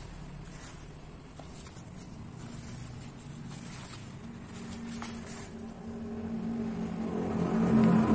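A motor engine running with a steady hum, growing louder toward the end as if coming closer.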